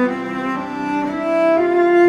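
Background music: a slow melody of held notes that change pitch every half second or so.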